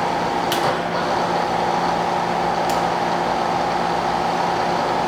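Bridgeport Series 1 2 HP variable-speed milling machine running steadily with the quill power feed engaged, a constant hum and gear whine from the head. There is a sharp click about half a second in, after which the whine is a little stronger, and another click near three seconds.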